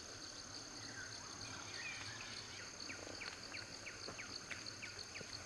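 Forest ambience: insects trilling steadily, with a run of short, evenly repeated chirps, about four a second from around three seconds in.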